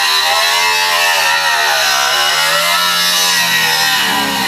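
Angle grinder with a cut-off disc cutting through the sheet-metal roof of a truck cab. Its motor whine slowly dips and rises in pitch as the cut goes on.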